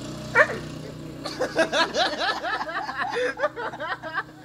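A person laughing in a rapid run of short, high-pitched giggles, after one sharp vocal cry about half a second in.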